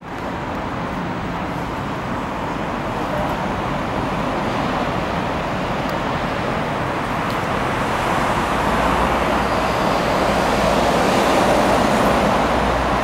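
VR Sm3 Pendolino electric train approaching the platform, a steady rolling rumble that slowly grows louder as it nears.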